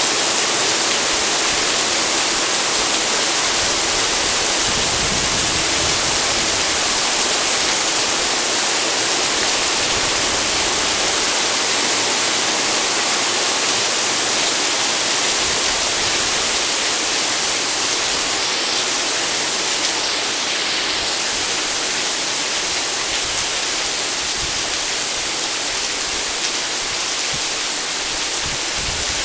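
Heavy rain pouring down in a sudden downpour: a loud, steady hiss, easing slightly past the middle.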